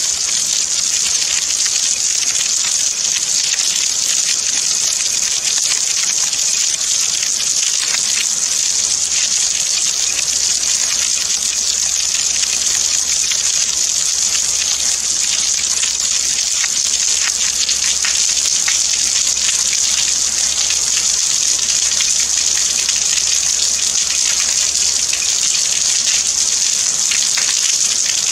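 Rain falling steadily: an even, dense hiss with the fine patter of individual drops.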